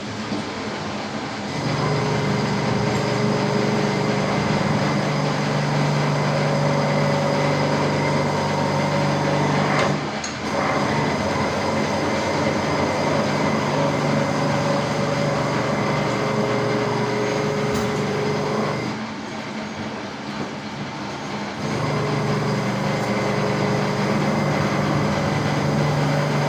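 Veneer knife sharpening machine running: a steady mechanical hum with several held tones, getting louder about two seconds in, dipping briefly near the middle, quieter for a few seconds later on, then louder again.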